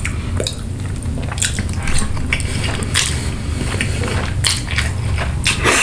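Close-miked eating of spaghetti in tomato sauce: wet chewing, lip smacks and a slurp of noodles, heard as a run of short sharp clicks. Under it runs a steady low rumble, which the eater wonders is an airplane.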